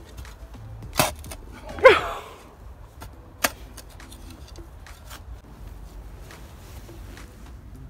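Metal garden spade digging into and tossing loose soil, with a few sharp scrapes and knocks. The loudest, about two seconds in, carries a short wavering tone.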